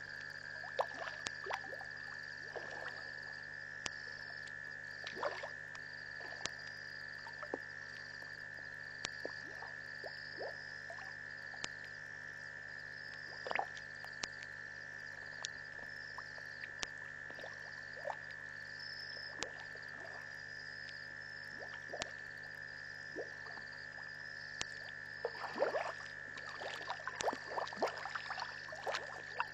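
Night chorus at an African waterhole: a steady high-pitched insect drone with frogs giving short clicking calls here and there, and a quick flurry of them near the end.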